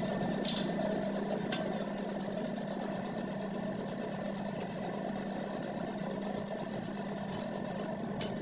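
A machine running steadily with an even hum, switched on or cut in suddenly, with a few light clicks in the first couple of seconds.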